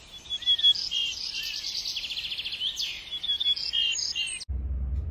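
Small songbirds singing: a busy mix of short chirps, whistled notes and a fast trill. The birdsong cuts off suddenly about four and a half seconds in, giving way to a low hum.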